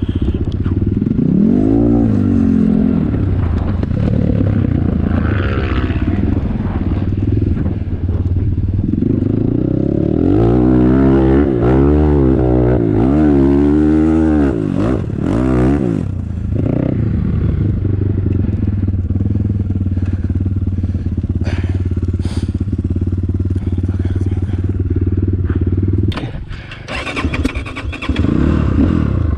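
Enduro dirt-bike engine running close by, revved up and down in quick waves a couple of seconds in and again, several times over, from about ten to sixteen seconds in. Between the revs it runs steadily; near the end it drops off briefly and then revs again.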